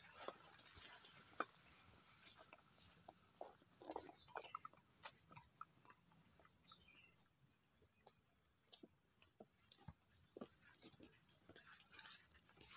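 Faint, steady high-pitched trilling of insects in the grass, with soft scattered footsteps on the grassy path; the trill drops away for a moment about seven seconds in, then returns.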